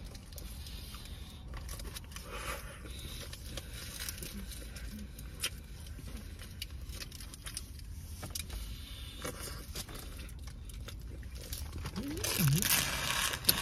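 A person chewing a burrito, with small wet mouth clicks and the aluminium foil wrapper crinkling now and then. Near the end the foil crinkles louder for about a second and a half. A low steady rumble runs underneath.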